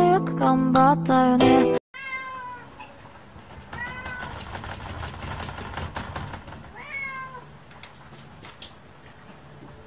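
Music plays for the first two seconds, then a domestic cat meows three times, a few seconds apart, with a few faint taps in between.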